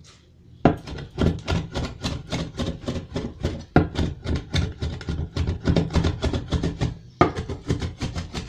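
A zırh, a large curved mincing blade, chopping spiced ground beef on a wooden board in rapid, even strokes, about five a second, each a knock of steel through meat onto wood. This is the hand-mincing and mixing of the meat with the vegetables and spices.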